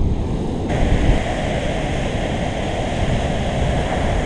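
Tropical-storm wind buffeting the microphone in a steady heavy rumble, over the hiss of large surf breaking on the reef. Under a second in, a brighter surf hiss comes in and holds.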